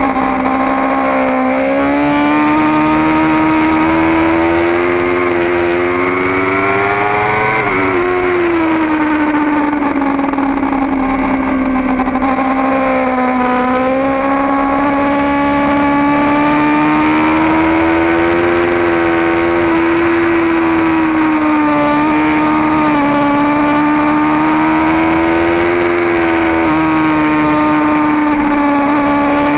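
Kawasaki Ninja ZX-10R's inline-four engine running at high revs on track, heard from a camera on the bike, its pitch climbing and easing gently through long corners. Near eight seconds in the pitch drops quickly and then climbs again.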